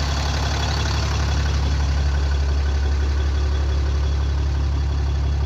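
Cummins diesel truck engine idling steadily, an even low rumble.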